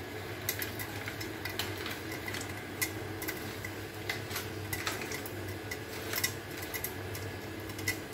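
Popcorn kernels popping in hot oil in a covered wok, bursting against the glass lid: scattered sharp pops, one or two a second, over a steady background hum.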